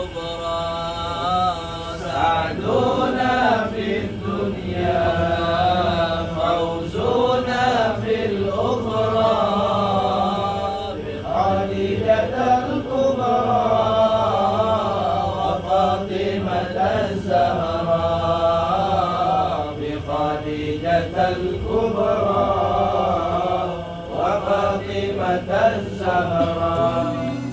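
Men's voices chanting an Islamic devotional chant (sholawat) in long, melodic phrases.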